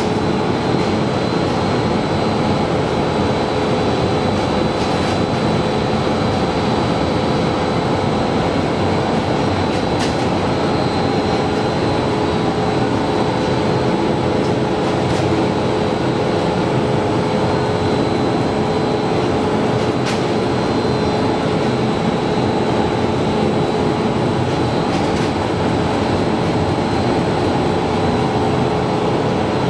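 Nonwoven needle-punching machine running at speed: a continuous dense mechanical clatter with a steady pitched hum underneath.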